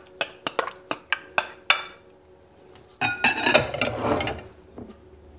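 Clinks of a bowl and utensil against a glass mixing bowl as raw pork liver is tipped and scraped in: a quick run of sharp, ringing clinks over the first two seconds, then a longer clatter with the wet sliding of the meat about three seconds in.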